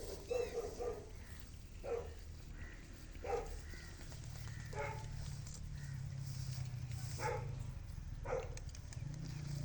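German Shepherd dog barking, about seven single short barks spaced roughly a second or more apart. A low steady hum runs beneath from about four seconds in.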